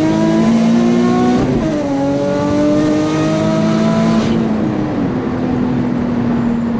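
Single-turbo Nissan 350Z's VQ35HR V6 pulling hard in a roll-on from 50 mph, revs climbing steadily. A gear change comes about a second and a half in and the revs climb again. About four seconds in the revs drop off to a steadier, lower note.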